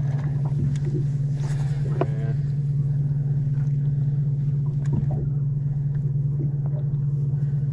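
A steady low motor hum on a bass boat, with a few light clicks and knocks from handling on deck.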